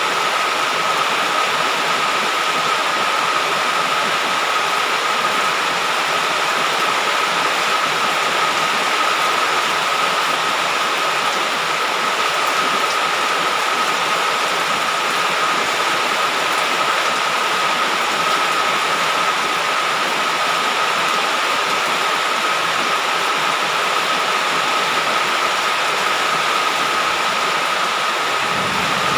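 Heavy rain falling steadily, an even hiss with a faint steady high tone running through it.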